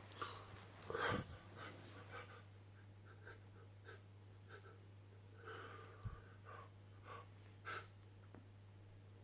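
A person breathing and sniffing after a sneezing fit, with faint rustles and a steady low hum underneath. The loudest breaths come about a second in and again near the end.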